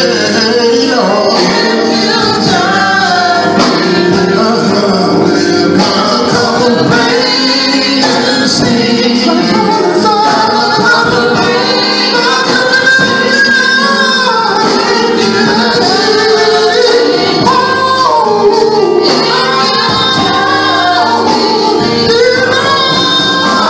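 Gospel song sung live by a small mixed group, men's and women's voices together, with band backing.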